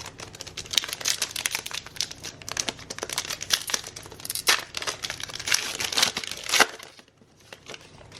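Wrapper of a Panini Illusions basketball card pack crinkling and tearing as it is ripped open, a dense crackle that stops after about six and a half seconds, followed by a few light clicks.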